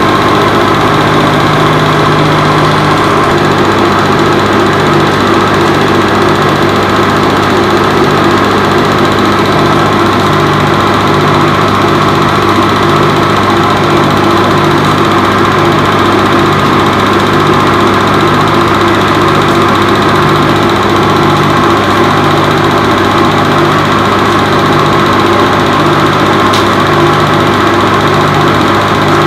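Film projector running: a steady mechanical hum with a low throb that pulses about once a second.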